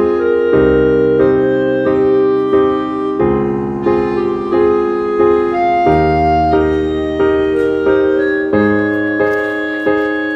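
Background piano music: sustained notes and chords, a new one struck about every half second to a second.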